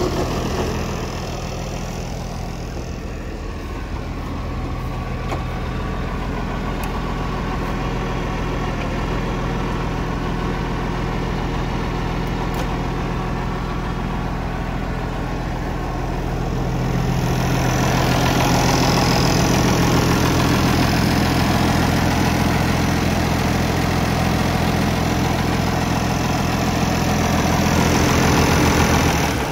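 International Harvester 1486 tractor's six-cylinder turbo diesel engine idling steadily, growing louder about two-thirds of the way through as the engine side comes close.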